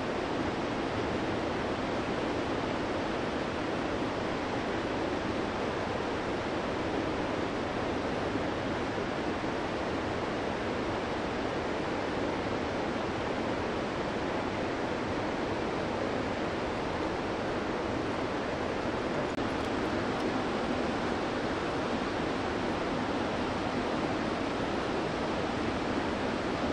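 Steady rushing of a mountain river, an even wash of water noise that does not change.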